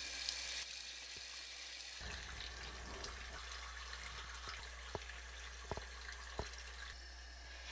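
Bathroom sink faucet running in a steady stream, with a few light clicks in the second half.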